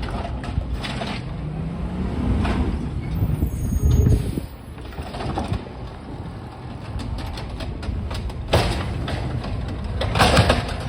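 Refuse truck on a green-waste pickup: its engine runs with a low rumble that swells to a peak about four seconds in, then eases, followed by sharp clanks about two-thirds in and again near the end.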